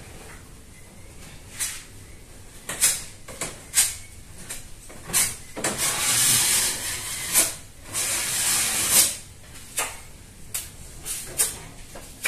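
Irregular bursts of hissing, most short and sharp, with two held for about a second each near the middle.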